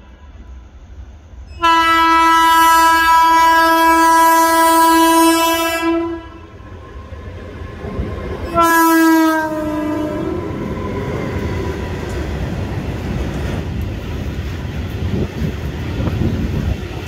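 WAG-12B electric freight locomotive sounding its horn while passing at speed. First comes a long blast of about four seconds, then a shorter blast that drops in pitch as the locomotive goes by, followed by the steady rumble of the freight wagons rolling past.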